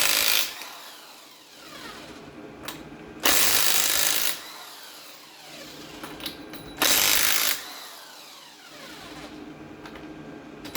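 Power impact wrench undoing wheel nuts in loud bursts of about a second, three times, with the motor winding down in a falling whine between bursts.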